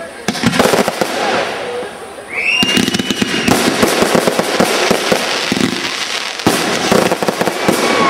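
Fireworks display: aerial shells bursting one after another with dense crackling bangs. About two seconds in, a whistle rises in pitch and holds for about a second.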